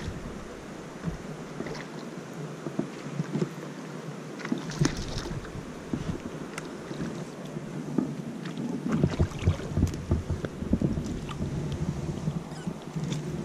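Irregular soft knocks and rustles of a person moving on a muddy creek bank and handling a fishing rod, with heavier footstep thumps in the second half and a low wind rumble.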